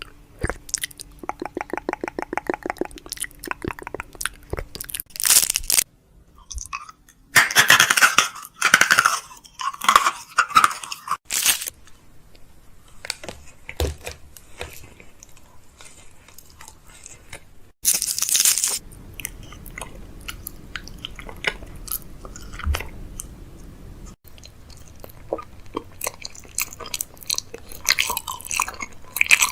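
Food packaging and containers being handled and set into a fridge: many clicks and taps with crinkling and rustling, and a few louder noisy stretches partway through.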